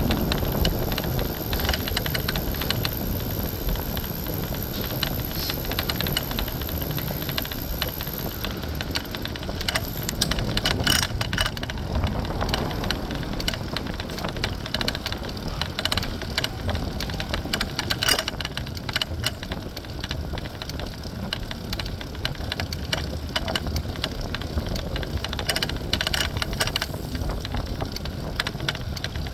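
Riding noise from a city bike in motion: a steady rush of wind and road noise on the phone's microphone, with frequent small rattles and knocks from the bike over the street.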